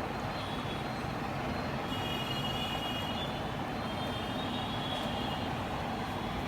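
Steady background noise, an even low rumble and hiss with no distinct events.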